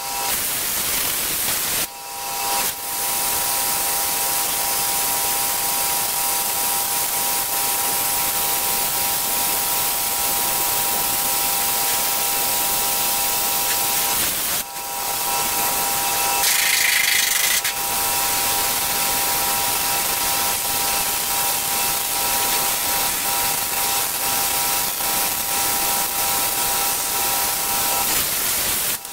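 Steady loud hiss with a constant high whine from a machine running in the workshop, with two short breaks, one about two seconds in and one near the middle.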